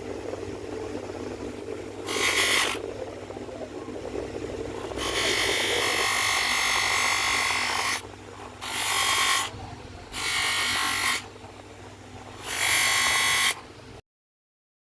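A small high-speed motor tool, such as a jeweller's rotary grinding or polishing tool, working in five hissing bursts of about one to three seconds each over a steady low hum. The sound cuts off near the end.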